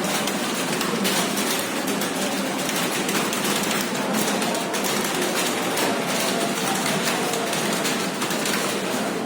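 Many computer keyboards being typed on at once, a dense, steady clatter of keystrokes.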